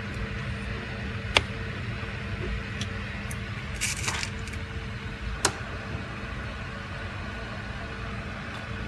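Two sharp clicks, about four seconds apart, with a short scratchy rattle between them, from handling a small plastic device while a memory card is fitted. A steady low hum runs underneath.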